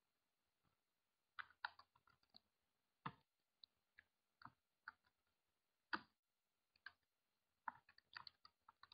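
Computer keyboard being typed: faint keystroke clicks in short irregular runs, with pauses between them.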